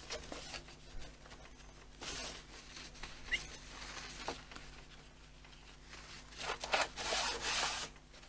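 A cloth rubbing over the body of a sewing machine as it is wiped clean, in a series of wiping strokes with a few light knocks. The longest and loudest stroke comes near the end.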